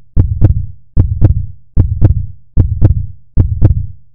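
A deep double thump with a sharp click on top, repeating about every 0.8 seconds like a heartbeat, the second beat of each pair about a third of a second after the first.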